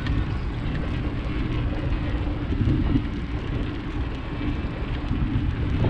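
Steady low rumble from riding a bicycle along a park path, the rolling noise of the ride mixed with wind on the microphone.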